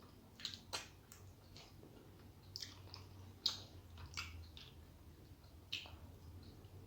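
Close-up eating sounds of a person chewing a meal of rice and curry: wet chewing with about half a dozen short, sharp mouth smacks. A faint low hum runs underneath.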